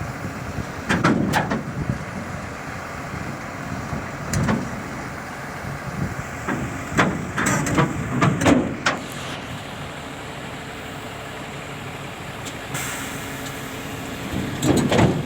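Volvo excavator's diesel engine running steadily as it crawls onto a low-bed trailer, with short metallic clanks and squeaks from the tracks, a cluster about halfway through and another near the end.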